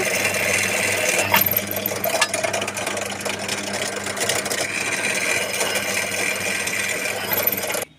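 Bench drill press running steadily, its motor humming as the bit drills holes into a mixer-grinder jar socket. The sound cuts off suddenly just before the end.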